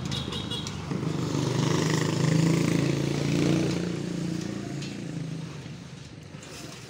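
A motor vehicle's engine passing on the street below: a low hum that grows louder over the first few seconds and then fades away.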